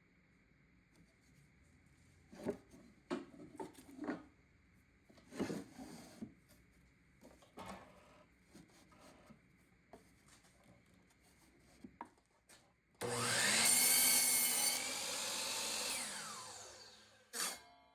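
Cedar boards handled and knocked together several times, then a cordless drill runs for about three seconds and winds down, falling in pitch. One more knock comes near the end.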